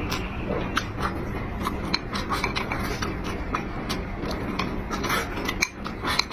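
Close-up eating sounds: chewing with many small irregular wet clicks and crunches, over a steady low background rumble.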